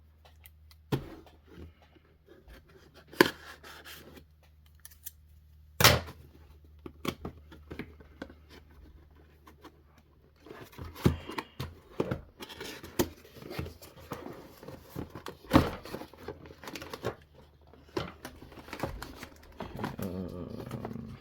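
Scissors cutting into a toy's cardboard and plastic packaging: scattered sharp snips and clicks, turning into busier snipping and packaging rustle about halfway through.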